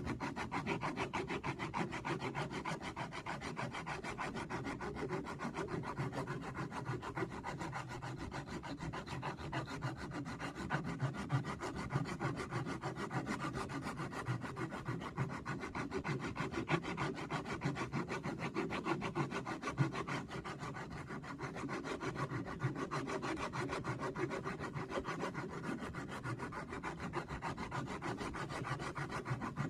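Sandpaper rubbing steadily on a wooden block in quick, continuous strokes as the block is sanded round toward a sphere.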